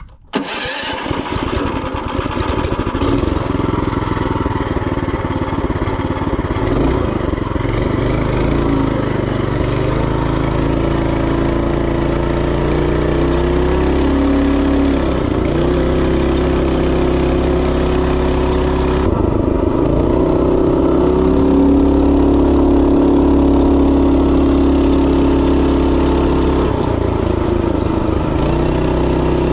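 Tillotson 212E single-cylinder four-stroke engine on a Mega Moto 212 minibike, running under throttle while the bike is ridden. The engine note holds steady, with short dips a few times as the throttle is eased and reopened.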